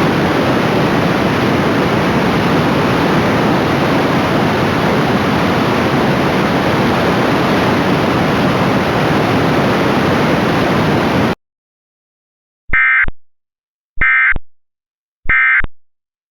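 Loud steady radio static that cuts off abruptly about eleven seconds in. After a second of silence come three short, identical electronic data bursts about a second and a half apart: an Emergency Alert System SAME header, the coded bursts that open an alert.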